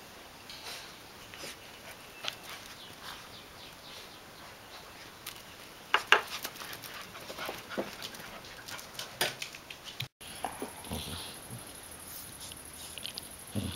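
Golden retriever puppies playing, with scattered short clicks and knocks, the loudest about six seconds in. The sound drops out briefly about ten seconds in.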